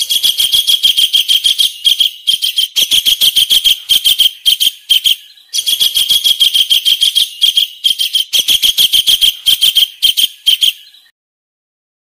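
Recorded kingfisher call: a fast run of sharp, high notes, about eight a second. There is a short break about five seconds in, and the notes stop shortly before the end.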